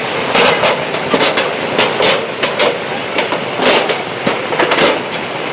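Steady rush of water with about a dozen sharp, irregular knocks over it.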